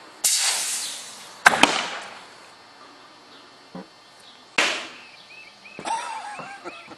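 Homemade compressed-air cannon and its air hose: a sudden hissing blast of released air that fades over about a second, then sharp bangs about a second later, and another short hissing blast a few seconds on.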